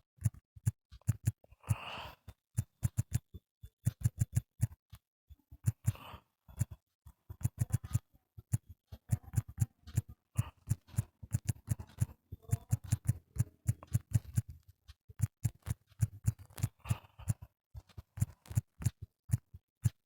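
Fingertips tapping quickly and irregularly on a phone touchscreen, a run of short clicks, each with a dull knock, with a few brief rustles of handling.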